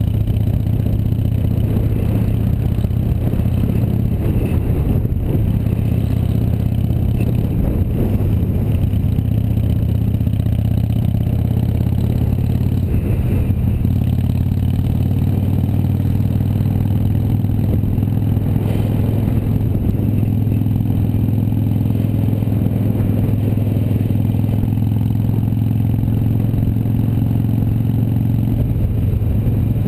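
Harley-Davidson V-twin motorcycle engine running steadily at cruising speed.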